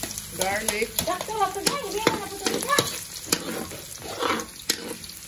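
Minced garlic sizzling in hot oil in a wok, with a metal spatula scraping and clicking against the pan as it is stirred.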